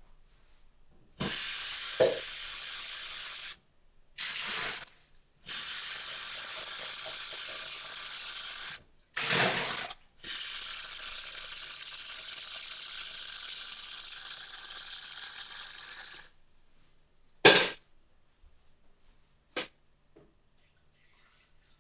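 Water rushing from a tap in several spells, turned on and off, the longest running about six seconds. Then a sharp knock a little later, and a smaller one after it.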